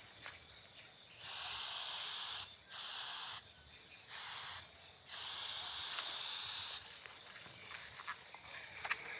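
Hand-pump pressure sprayer spraying insecticide from its nozzle in four separate bursts, the last and longest lasting nearly two seconds.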